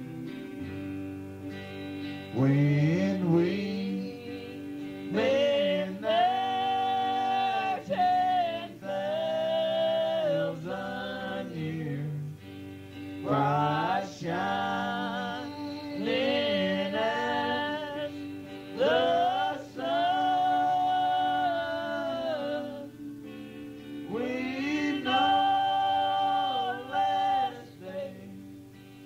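A group of singers performing a slow hymn with guitar accompaniment, holding long notes in phrases a few seconds apart.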